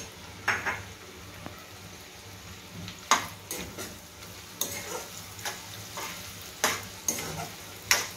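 Chopped onions and green chillies sizzling in hot oil in a steel pot, stirred with a steel ladle that scrapes and knocks against the pot several times at uneven intervals.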